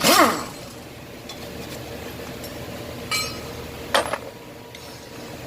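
Metal tools and engine parts clinking during an engine teardown: a loud ringing clank at the start, then a ringing clink about three seconds in and a sharp click a second later.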